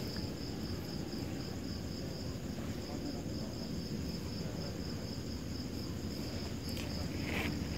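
Night insects trilling steadily in a high, finely pulsing tone over a low rumbling background noise, with a faint brief hiss near the end.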